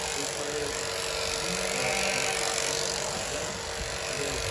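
Electric sheep-shearing handpiece, driven from overhead gear, running steadily as it cuts the fleece off a lamb: a steady mechanical hum.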